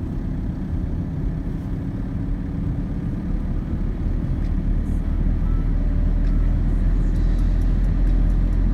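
A car on the move: a steady low rumble of road and engine noise that grows slightly louder about halfway through.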